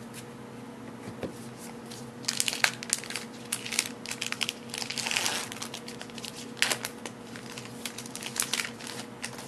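Trading card pack wrapper being torn open and crumpled by hand, a run of crinkling crackles from about two seconds in until near the end.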